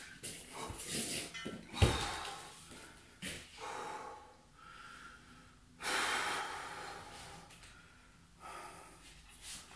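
A man breathing hard and gasping after a core exercise, with long, heavy exhales. About two seconds in, a single heavy knock as the metal dip-bar stand is set down on the rubber floor mat.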